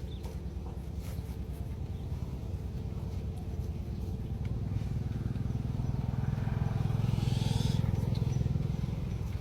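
An engine running steadily with a fast, even pulse, growing louder about six seconds in and easing off near the end.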